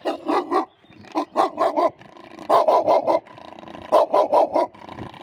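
Central Asian shepherd barking in four quick bursts of four or five barks each, about a second apart: the dog has been startled from sleep.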